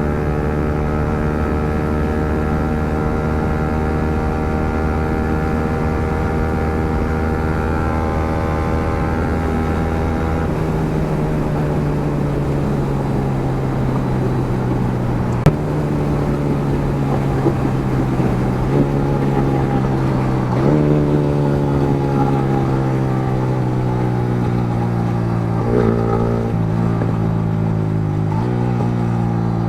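Yamaha MT-15's single-cylinder engine running through an Akrapovic aftermarket exhaust, holding a steady note, then from about halfway rising sharply in pitch several times and sinking slowly back after each. One sharp crack comes about halfway.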